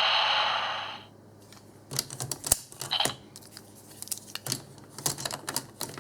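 An electronic voice or sound effect from a Super Sentai toy's small speaker tails off in the first second. It is followed by a run of sharp plastic clicks and clacks as the toy is handled.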